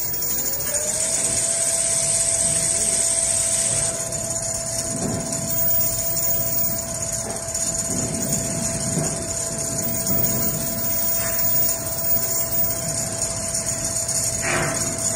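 Richpeace automatic furniture sewing machine running non-stop at steady speed: a high whine that climbs to its pitch in the first second and holds, over a rough mechanical rumble, with a short knock near the end.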